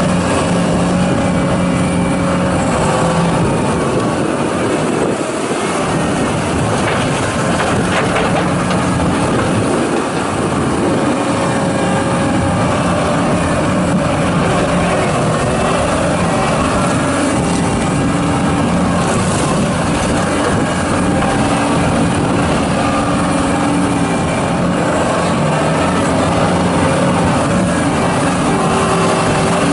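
John Deere 331G compact track loader's diesel engine running steadily as the machine is operated, its engine note shifting in pitch now and then.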